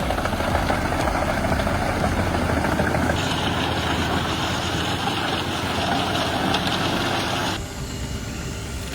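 Heavy machinery engines running steadily, with abrupt changes in the sound about three seconds in and again near the end, where it drops quieter.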